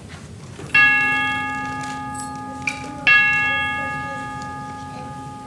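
Clock bell chiming the quarter hour: two strokes about two and a half seconds apart, each ringing on and slowly fading, with a third stroke starting at the very end.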